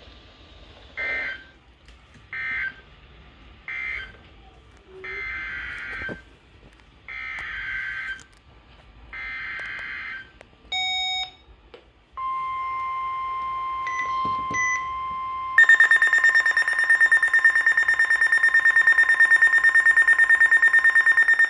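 Emergency Alert System data bursts on NOAA Weather Radio: three short bursts closing the previous message, then three longer, about one-second bursts of header data for the next alert. A steady attention tone follows about twelve seconds in, and a louder, harsh buzzing alarm tone joins it a few seconds later and holds.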